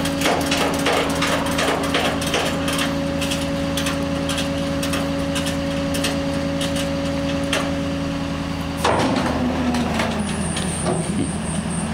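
Flatbed tow truck running with a steady hum while loading a car, with repeated knocks and clanks of metal, thickest in the first few seconds. About nine seconds in, the hum shifts to a lower, wavering note.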